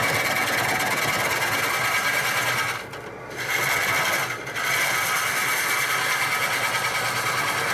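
Bowl gouge cutting into a large maple blank spinning on a wood lathe at about 400 RPM, end grain, a continuous rapid rhythmic scraping with shavings spraying off the tool. The cut drops away briefly about three seconds in and again about a second later as the tool eases off, then picks up again.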